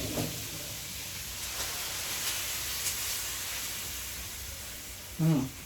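Water hitting a hot pan of stir-fried beef, mushroom and broccoli, hissing and steaming in a steady hiss that slowly fades.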